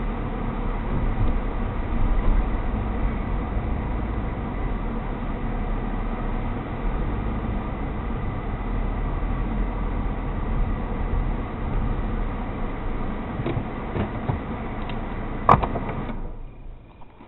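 Steady car running noise heard from inside the cabin, engine and road rumble with faint steady tones. A sharp click comes about fifteen and a half seconds in, and the noise drops away sharply just after.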